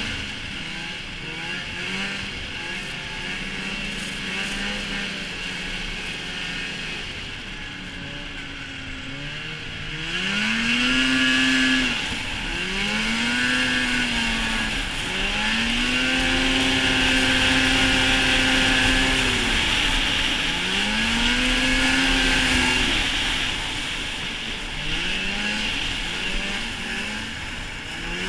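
Polaris snowmobile engine under way, its pitch rising and falling as the throttle is worked. About ten seconds in it gets louder, with four big rev-up and ease-off sweeps before settling back to a lower drone near the end.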